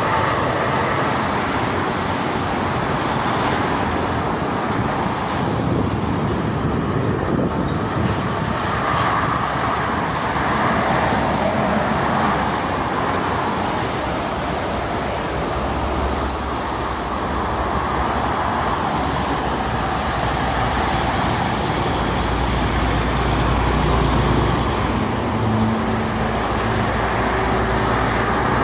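Steady traffic noise from a busy multi-lane highway, with cars, trucks and buses passing at speed. A deeper low rumble from heavy vehicles swells about two thirds of the way in.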